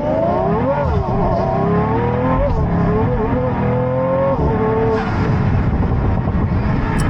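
Pagani Huayra's twin-turbo AMG V12 on launch control, its revs swinging up and down while held before the launch. About five seconds in, the steady engine pitch gives way to a rougher, noisier sound.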